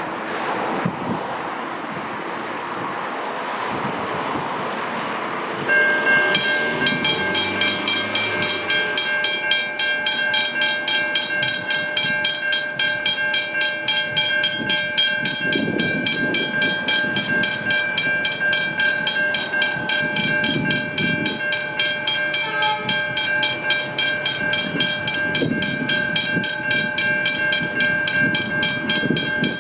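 Westinghouse hybrid level-crossing bell starting about six seconds in and ringing with rapid, even strokes: the crossing has been activated for an approaching train. Before it there is a steady rushing noise, and low rumbles come through under the bell later on.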